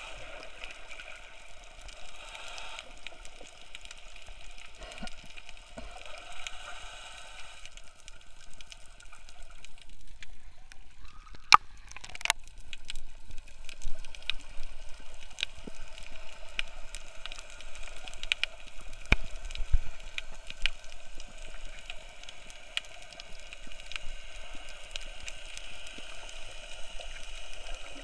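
Water noise picked up by an action camera held underwater: muffled gurgling and sloshing with many small sharp clicks scattered throughout, and two louder clicks a little before the middle.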